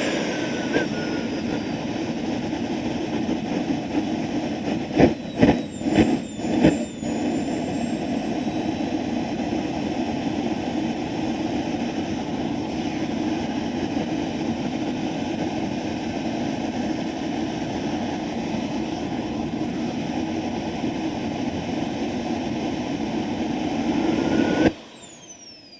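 Behotec 220 model turbojet engine running at idle, with a cluster of about five loud coughs or puffs about five seconds in. Near the end the pitch rises briefly as it is throttled up, then the engine flames out: the sound drops suddenly to the falling whine of the turbine spinning down.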